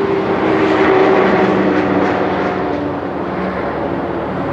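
A running engine drones steadily, with a few humming tones that sag slightly in pitch around two seconds in.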